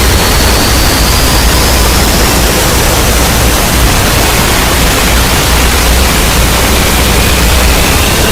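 Loud, steady static-like hiss with a heavy low hum underneath and faint thin tones slowly rising in pitch.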